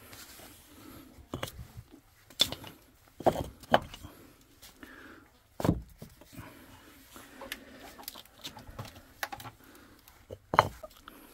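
Flat paving bricks being set down and knocked against one another to cover a rat hole: a handful of separate sharp clacks spread out, the loudest about halfway through and another near the end.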